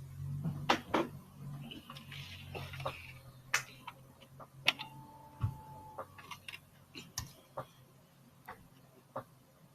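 Irregular light clicks and taps of small hard objects, uneven in loudness, over a low hum that fades out about three seconds in; a brief steady tone sounds about halfway through.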